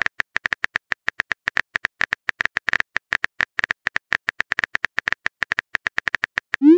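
Rapid keyboard-click sound effect of a simulated phone chat, about ten short ticks a second as a message is typed letter by letter. Near the end a rising swoosh begins as the message is sent.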